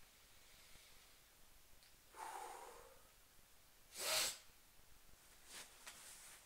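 A man's breathing close to the microphone: a soft breath about two seconds in, then a short, sharp snort through the nose about four seconds in, followed by two faint clicks.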